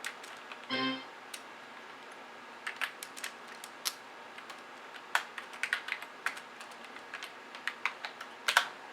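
Irregular clicking and tapping of a computer keyboard and mouse, with a brief pitched tone just under a second in.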